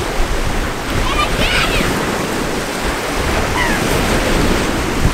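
Steady wash of waves on a sandy lakeshore, with a rush of wind.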